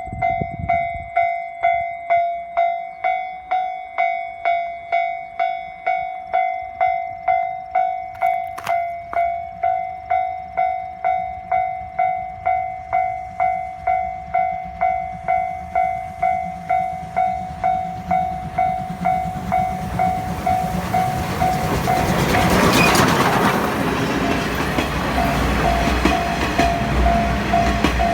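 Level-crossing warning bell ringing steadily, just under two rings a second. About two-thirds of the way in, the SL Hitoyoshi steam train comes through the crossing. Its noise swells to a peak about three-quarters through and stays loud, with wheels clacking over the rail joints, while the bell keeps ringing beneath it.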